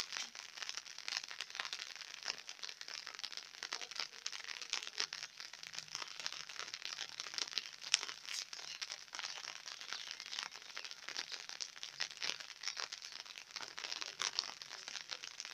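Light rain pattering, heard as a steady crackle of many small, irregular drop clicks.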